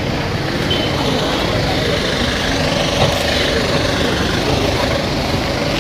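Ambulance van's engine idling steadily.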